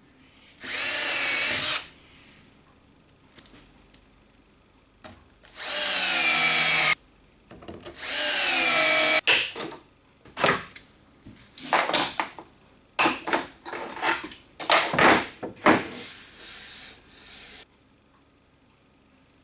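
Power drill running in three long bursts with a whining pitch, then a quick series of short trigger pulses.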